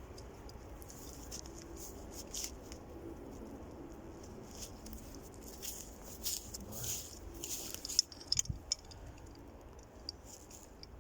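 Snow being scooped and packed into a cooking pot: a run of soft, irregular crunching scrapes, with a sharper click about eight seconds in.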